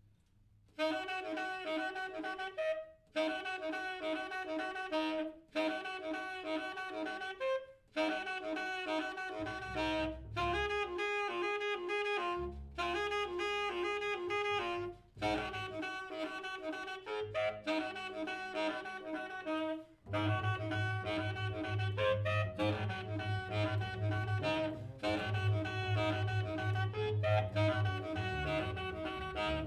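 Saxophone playing short, rapidly articulated phrases of a few seconds each, separated by brief breaks, starting about a second in, with a low sustained tone under the notes in the later part. The playing is meant to evoke the cries of elephants.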